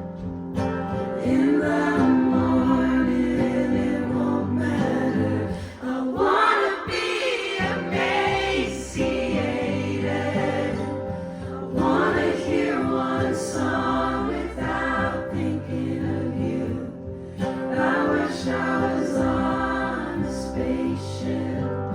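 Live acoustic performance: women's voices singing together in harmony over acoustic accompaniment.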